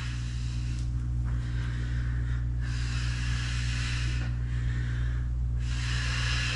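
A woman breathing hard while exercising: two long, audible breaths, the second starting a little past halfway, over a steady low hum.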